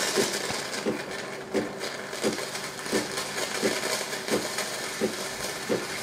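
Steam wand of a Casabrews 4700Gense espresso machine hissing steadily, opened slightly to purge condensation, with a short low pulse repeating about every 0.7 seconds.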